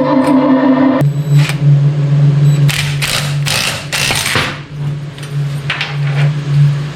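Rock guitar music cuts off about a second in. A steady low hum follows, with a quick run of short rasping mechanical noises from hand-tool work, most of them between about three and four and a half seconds in.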